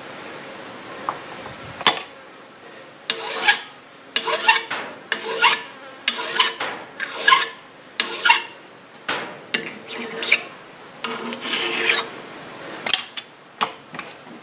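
Small hand file rasping across the edge of a thin arrowhead cut from a spoon, in short strokes about half a second to a second apart that begin about three seconds in. The file is cutting the binding notches into the arrowhead's side.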